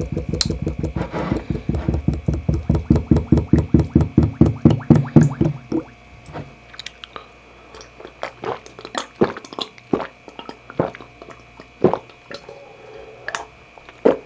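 Eating sounds: a fast, even run of knocks for about the first half, then quieter scattered clicks and chewing.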